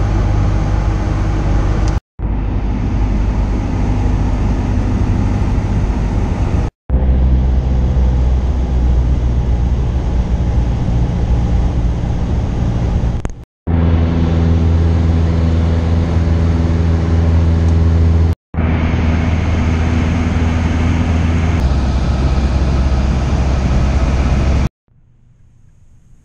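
Cessna 172's piston engine and propeller running steadily, heard from inside the cabin in flight, in several clips cut together with brief silent gaps between them. Near the end it cuts to quiet room tone.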